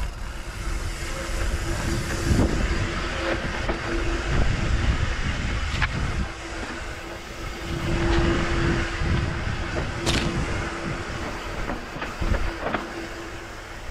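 Mountain bike descending a steep dirt trail: a continuous rumble of tyres and rattling, with a sharp knock four times as it hits bumps and a steady whir that comes and goes.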